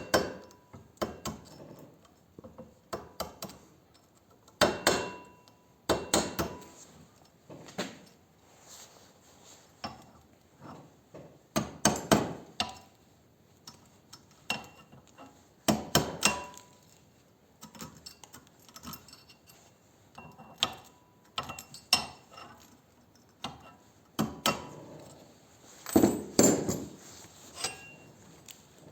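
Metal tapping and clinking at irregular intervals, some strikes ringing briefly: an old drill bit being used to chip weld slag out of a tight corner on steel.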